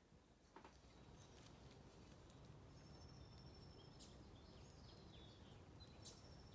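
Faint woodland ambience with birds calling, starting about half a second in: thin high whistles and short chirps, some held and some falling in pitch, over a soft outdoor background, with a few light clicks.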